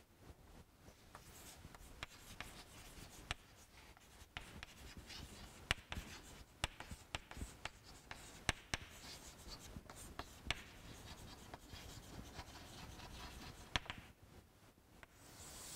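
Chalk writing on a chalkboard: soft scratching strokes broken by many sharp, irregular taps as the chalk meets the board.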